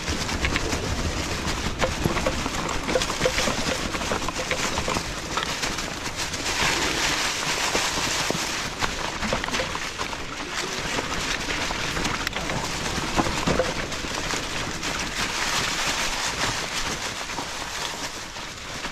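Fat tires of a Nakto F6 e-bike rolling over dry fallen leaves and rocky trail ground: a steady crunching rustle with many small knocks and rattles.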